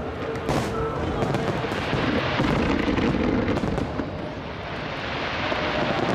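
Aerial fireworks shells bursting in rapid succession during a large display: a dense, continuous barrage of booms and many sharp cracks.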